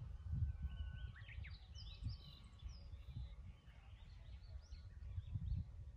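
Wind rumbling on the microphone in gusts, with small birds chirping and calling several times above it.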